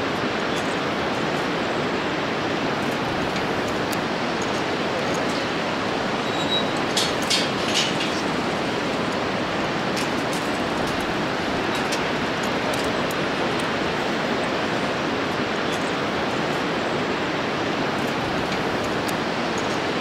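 Steady rush of the Bhote Koshi's whitewater rapids in the gorge below, an even roar with no pitch. A few faint clicks come about seven seconds in.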